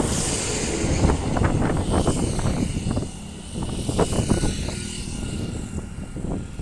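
Highway traffic noise, vehicles running past on a four-lane road, mixed with a gusty low rumble of wind on the microphone.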